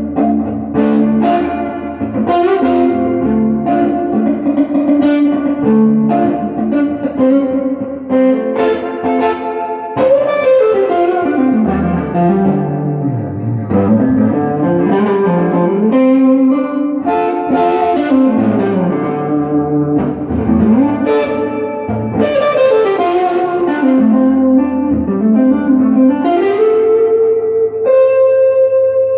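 Electric guitar with Gibson Les Paul Classic 57 humbuckers played through an Earthquaker Devices Ghost Echo reverb pedal into a Fender Pro Junior III tube amp: picked chords and single-note lines, with runs sweeping down in pitch and back up, ending on a held note that rings on in the reverb.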